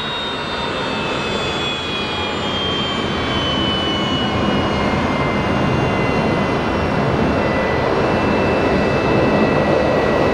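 A Fokker 100's two rear-mounted Rolls-Royce Tay turbofans running as the jet rolls along the runway: a steady rush of jet noise with a high whine that slides gently down in pitch.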